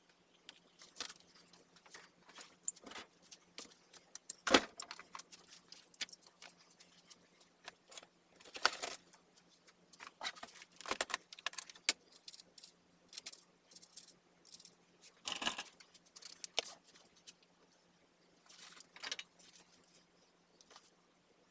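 Small clicks, clinks and rattles of hands handling wires, connectors and tools at an electric scooter's open battery tray. A few louder knocks stand out, and a faint steady low hum runs underneath.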